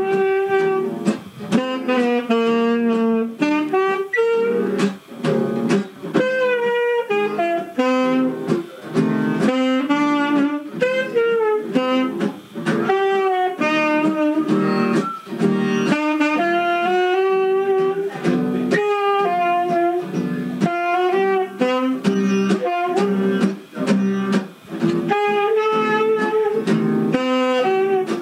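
Live jam: a reed wind instrument plays a flowing melody of changing and bending notes, with short breaks between phrases, and a fiddle plays along.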